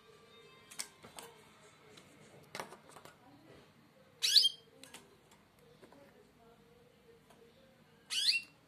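Nestling finches giving two short bursts of shrill begging calls, about four seconds in and again near the end, as they are fed by syringe. Faint clicks of handling come before them.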